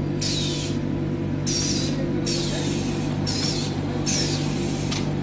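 Automatic powder bag filling and packing machine running with a steady low hum, broken by five short, loud hisses of compressed air, typical of its pneumatic valves venting.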